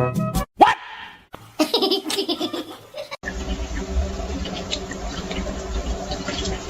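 Laughter in short cut-together snippets, followed about three seconds in by a steady low rumble and hiss.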